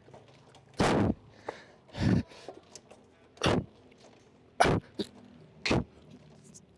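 A man breathing out hard in short, forceful puffs, one with each rep of a bodyweight dip, about five times at a steady pace of just over one a second.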